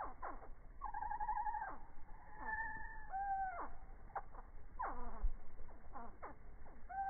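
Hummingbird calls slowed down with the slow-motion video, so they come out as low, drawn-out whines. There are many steep downward swoops and a few held, wavering notes, one after another and sometimes overlapping.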